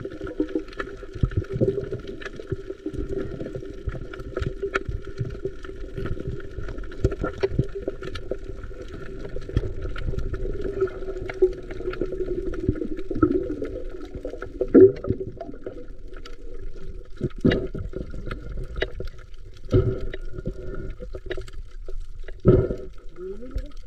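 Water sloshing and gurgling, with scattered knocks and clicks over a steady hum.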